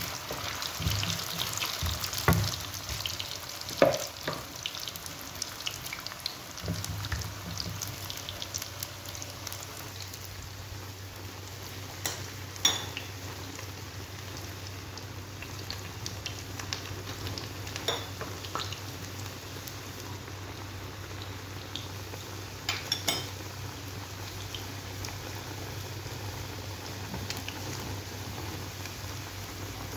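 Potato sticks frying in hot oil in a pan, a steady crackling sizzle, with a few sharp knocks scattered through it. A low steady hum sets in about seven seconds in.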